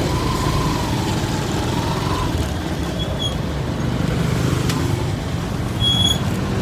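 Motorcycle engine of a passenger tricycle running steadily, heard from the driver's seat.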